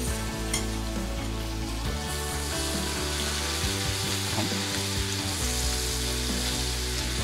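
Chopped onions frying in butter in a pan, sizzling steadily as spoonfuls of ginger-garlic paste go in and are stirred through with a silicone spatula. The sizzle grows brighter about two seconds in.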